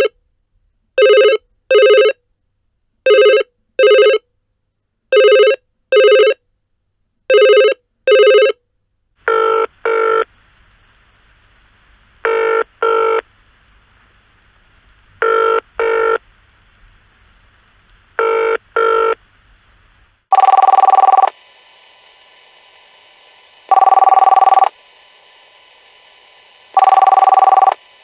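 Telephones ringing, one recording after another. First come electronic double rings (ring-ring) about every two seconds; then, about nine seconds in, a different double ring over a low hum, about every three seconds. About twenty seconds in comes a third ring of single long tones every three seconds over a steady background tone.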